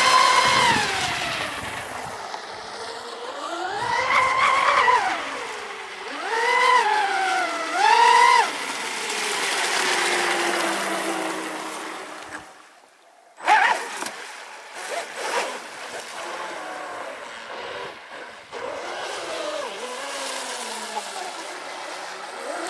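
Radio-controlled speedboat's motor running at high speed over the hiss of spray off the hull. Its pitch rises and falls several times as the boat accelerates and passes. The sound drops out briefly about halfway through, then comes back quieter and more uneven.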